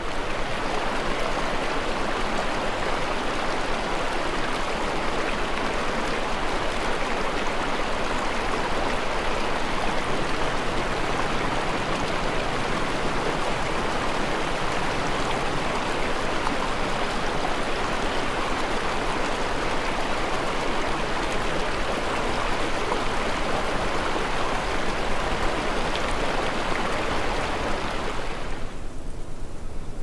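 Water of a stream running steadily, an even rushing sound that fades out near the end.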